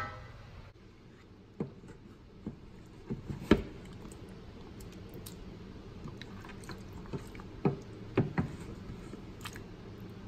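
Wooden spoon stirring and scooping through thick curried goat stew in an enamel roasting pan: wet squelches with a few sharp knocks, the loudest about a third of the way in and again near the end.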